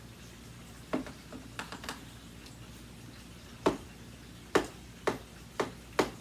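Handling noise: scattered sharp clicks and knocks. A light one comes about a second in, then five louder ones from a little past halfway, the last four about half a second apart.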